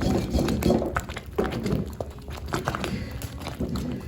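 Thick maize-meal porridge (pap) bubbling in the pot, with irregular plops and pops as bubbles break through the surface.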